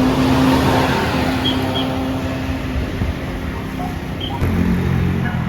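Street traffic: a vehicle engine running with a steady low hum, swelling as it passes in the first couple of seconds and easing off after.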